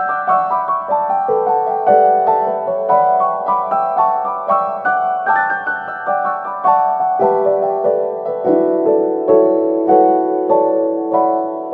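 Background music: a piano playing a melody in a steady stream of notes.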